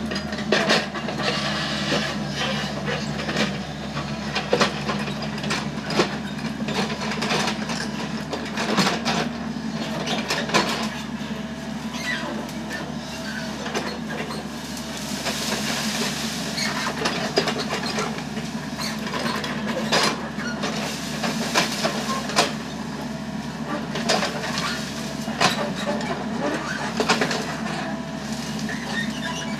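Foton FR150-7 crawler excavator's diesel engine running steadily under load, with frequent sharp metallic clanks and knocks from the working machine as it moves and digs.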